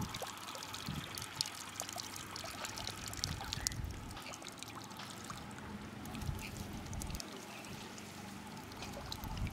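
Water trickling and dribbling out of the punched holes of a plastic-bottle fish trap held up out of the pond, thinning out about halfway through as the bottle drains.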